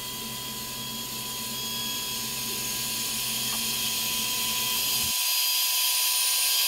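ShopBot PRT CNC router spindle running with its bit cutting into plywood: a steady high whine with a hissing cutting noise that grows gradually louder. The low hum underneath drops out abruptly about five seconds in.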